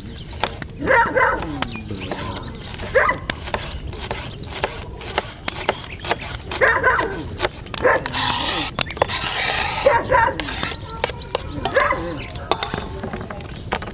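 A dog barking and yelping several times, short calls that fall in pitch, among scattered sharp clicks and knocks.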